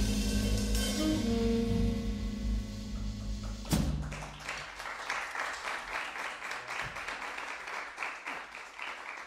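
Jazz quartet of saxophone, electric guitar, double bass and drums holding a closing chord, ended by a final drum and cymbal hit a little under four seconds in. Audience applause follows and slowly fades.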